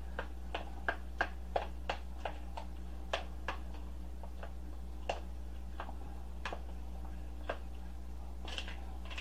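A spoon knocking and clicking against a mixing bowl while mashing and stirring potato filling: irregular sharp clicks, two or three a second at first, growing sparser toward the end.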